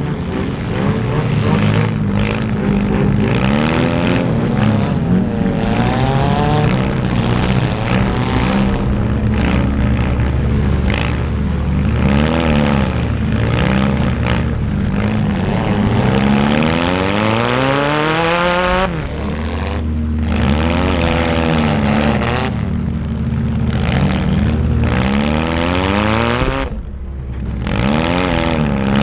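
Several small demolition-derby cars' engines revving hard, their pitches rising and falling over one another.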